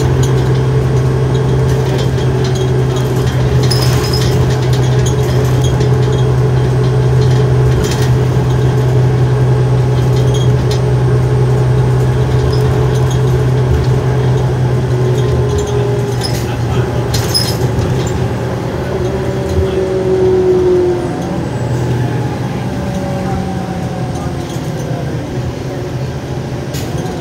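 Inside a 2007 New Flyer D40LF diesel city bus under way: its 8.9 L Cummins ISL engine and drivetrain run with a steady drone, with a few sharp rattles. About two-thirds of the way through, the note drops in pitch and the sound gets quieter.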